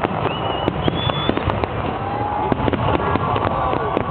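Big fireworks display: a dense, continuous run of cracks and bangs, many a second, with whistling tones gliding up and down over them.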